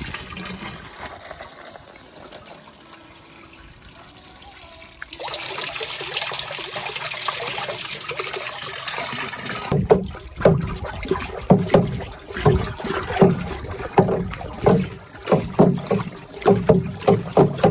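Water running into a barrel of Miracle-Gro plant food mix: a trickle at first, then a heavier, louder pour from about five seconds in that stops abruptly near ten seconds. After that, water sloshes in a steady rhythm of strokes, a little under two a second, as the mix is worked.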